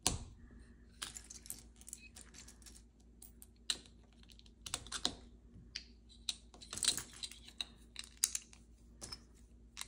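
Plastic LEGO pieces clicking and knocking at an irregular pace as they are handled and fitted together, with a few sharper clicks.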